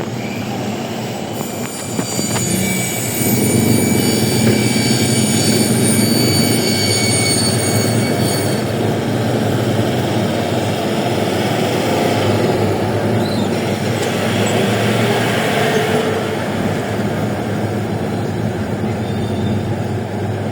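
Road and drive noise of a moving vehicle heard from on board, a steady rumble with thin high whines for several seconds after about a second in.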